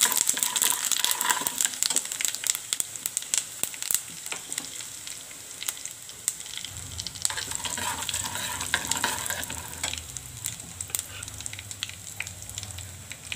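Whole spices (fenugreek, cumin, mustard, fennel and nigella seeds) sizzling and crackling in hot mustard oil in a pan, a tempering. The popping is busiest in the first few seconds, and a low hum comes in about halfway.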